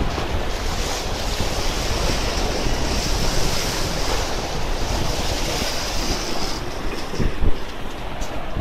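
Small waves breaking and washing over rocks, with wind buffeting the microphone as a low rumble. A brief thump about seven and a half seconds in.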